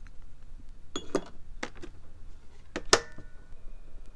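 Cooked rice being served from a rice cooker into a ceramic bowl with a plastic rice paddle: a few soft taps and scrapes of paddle against pot and bowl, then a sharp ceramic clink with a short ring about three seconds in.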